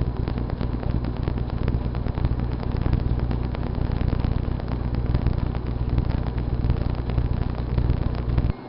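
GE Dual Wave microwave oven running with a steady low hum and a dense crackle over it, cutting off suddenly near the end.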